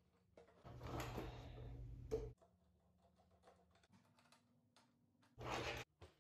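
Screwdriver driving a screw through the back of a wooden cabinet door into a metal pull handle: a run of about a second and a half near the start and a short second run near the end.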